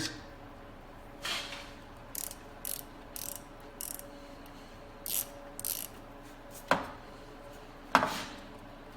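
Ratchet wrench clicking in short, separate strokes, with a couple of sharper metal clinks near the end, as the 10 mm nut on the alternator's power-wire terminal is loosened.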